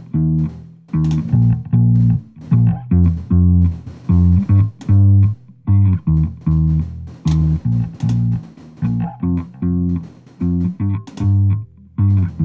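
Solo electric bass line played back from a mix session: distinct plucked notes in a steady rhythm, heard first dry with the Waves RBass low-end enhancer bypassed, then with it switched in to fatten the lows.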